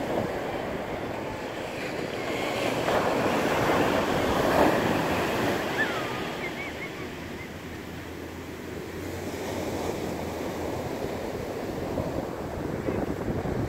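Atlantic surf breaking and washing up a sand beach, the rush of water swelling loudest about four to five seconds in, easing off, then building again near the end.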